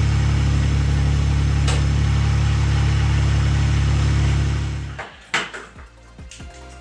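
Ventrac tractor's engine idling steadily with a low hum, fading away about four and a half seconds in. A few sharp clicks follow near the end.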